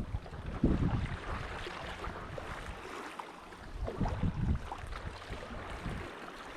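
Choppy lake water splashing and lapping around a paddleboard, with wind buffeting the microphone in low rumbling gusts, strongest about half a second in and again about four seconds in.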